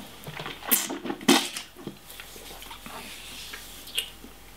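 Mouth noises of a wine taster working a sip of red wine: a few short, noisy slurps and swishes in the first two seconds, the loudest about a second in. Then it goes quieter, with one light click about four seconds in.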